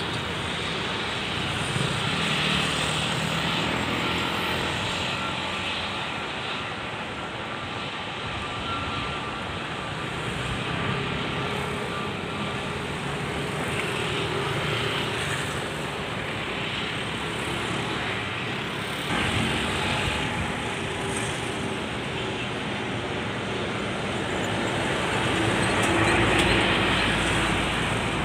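Jet airliner engine noise: a steady rushing noise with a faint whine, growing louder near the end.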